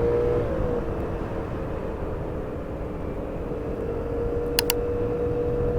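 Piaggio Medley S 125 single-cylinder scooter engine running under way, with road and wind rumble: its hum drops in pitch early on, fades, then holds a steady pitch from about halfway. Two short clicks sound a little past the middle.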